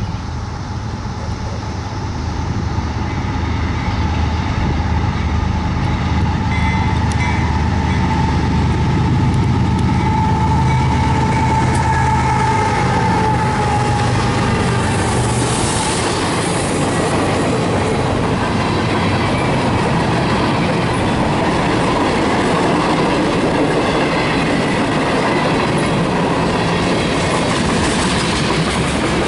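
Three GE diesel-electric freight locomotives pass, diesel engines running under load with a high whine, growing louder over the first few seconds. From about halfway through, freight cars and covered hoppers roll by with a steady clatter of wheels on the rails.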